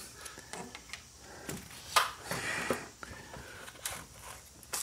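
Handling noise from a plastic pipe being worked into place against a stone wall: scattered light knocks and rubbing, with a sharper knock about two seconds in.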